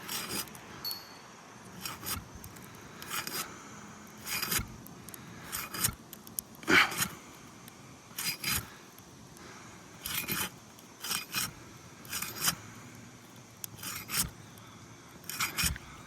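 A hand tool scraping and prying under asphalt shingles to break their sealant bond and free a shingle. It makes about a dozen short, sharp scrapes, roughly one a second at an uneven pace.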